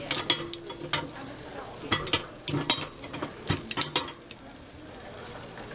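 Metal pick tapping and scraping against cast-iron bungeoppang (fish-shaped bread) molds, a string of sharp clinks through the first four seconds, over a steady sizzle of batter cooking in the hot molds.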